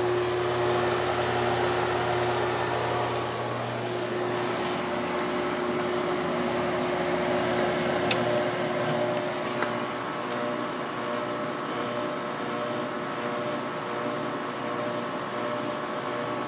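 Kenmore 5000 BTU window air conditioner running on high cool: a steady fan rush over a low compressor hum. The low hum drops away about nine seconds in, and there are a couple of light clicks.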